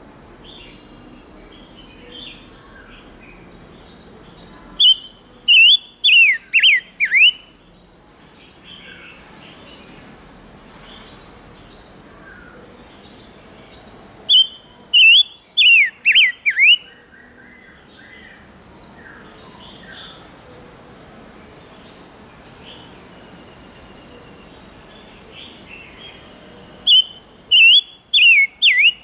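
Silver-eared mesia (chim ngũ sắc) singing: three loud phrases about ten seconds apart, each a quick run of about six clear whistled notes that sweep down in pitch. Softer bird chirps run in between.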